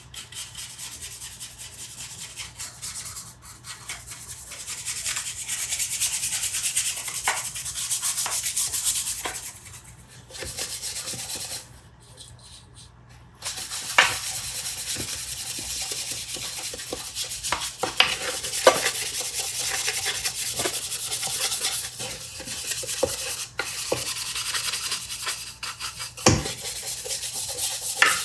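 Sandpaper rubbing on wood in quick repeated strokes, a steady scratchy hiss with a few light knocks, pausing briefly about halfway through.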